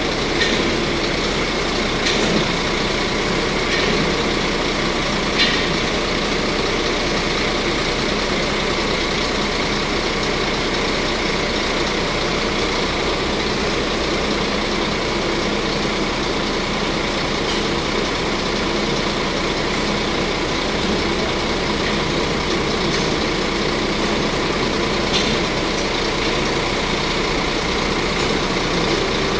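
Steady engine and road noise of a heavy motor vehicle, with a few light clicks in the first several seconds.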